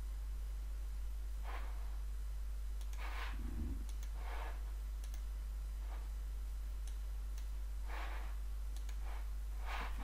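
Steady low mains hum with a few faint computer mouse clicks and about six short, soft breaths close to the microphone.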